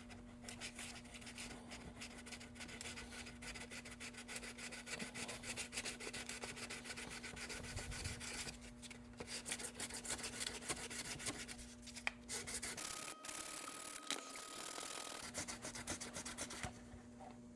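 Sandpaper rubbing rapidly back and forth over a plastic-welded repair on a scale RC truck's plastic body, sanding it flat, with short pauses about nine and twelve seconds in and again near the end.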